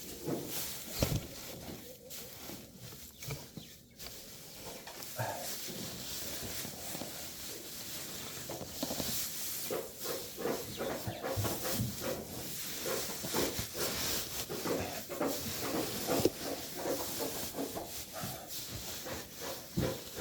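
Steady hiss of water running into a bucket, which fills until it is full. Alongside it, goats chew and knock against their buckets.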